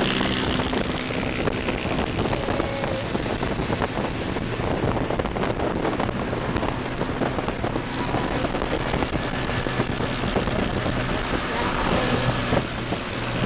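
Wind rushing over the microphone with a steady engine drone and road noise, recorded from a motorcycle riding at highway speed.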